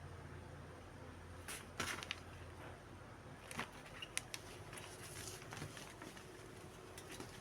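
Faint rustling and handling of a clothing set and its packaging, with a few short sharp crinkles and taps about two seconds in and again around three and a half to four and a half seconds in.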